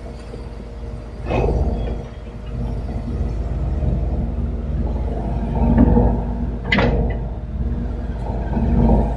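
2012 Kobelco SK170-9 excavator running, a steady low engine rumble that grows louder partway through, with a brief surge about a second in and a sharp clank near the end.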